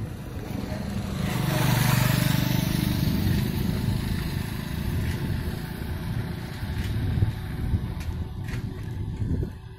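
A motor vehicle passing close by, loudest about two seconds in, over a steady low road rumble.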